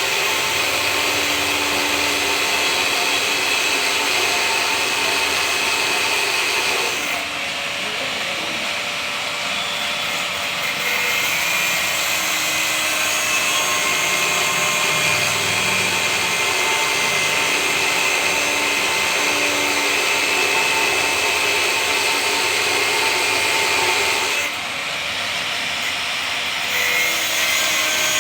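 Angle grinder cutting metal during a washing-machine drum bearing replacement, running continuously under load and easing off briefly twice.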